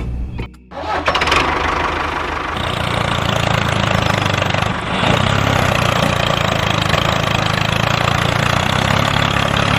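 An engine starts up about a second in and runs steadily with a fast, rough low beat.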